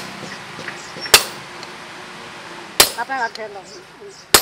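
A hand hammer striking leaf-spring steel on an anvil block: three sharp metallic clangs about a second and a half apart.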